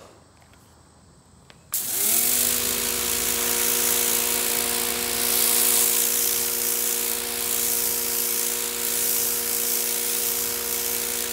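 Sun Joe SPX2688-MAX electric pressure washer kicking on a little under two seconds in: its motor and pump whine up briefly, then hold a steady hum, while the high-pressure water spray hisses against grimy concrete.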